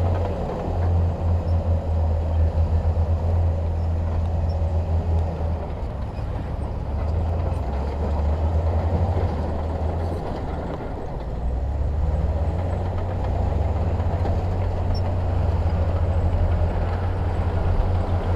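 Heavy diesel earthmoving machinery running steadily, a deep throbbing engine rumble that eases slightly midway and then picks up again.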